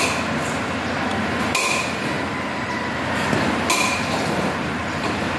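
Sliding plantation shutter panels rolling along their track with a steady rumble, with a sharp click three times as the panels knock together or stop.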